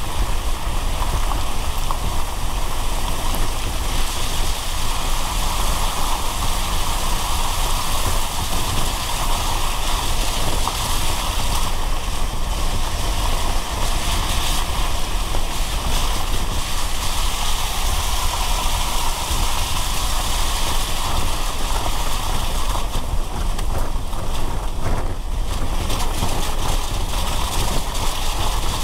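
Car driving in the rain: a steady hiss of rain and wet road noise over a low rumble from the car.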